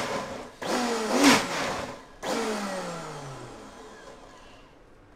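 High-speed countertop blender pulsed in short bursts, about three times, grinding a thick paste of ginger, galangal, turmeric, garlic, shallots and lemongrass with too little water. After the last burst, about two seconds in, the motor winds down with a falling whine.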